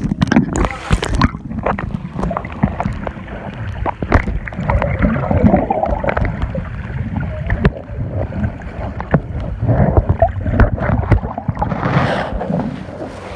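Water sloshing and gurgling around a phone recording underwater, muffled and full of small knocks and bubbles. It sounds clearer and splashier in the first second and again near the end.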